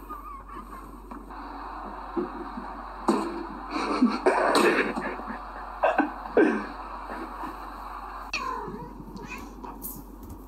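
A cat meowing and yowling, several short falling cries bunched in the middle and one more a little later.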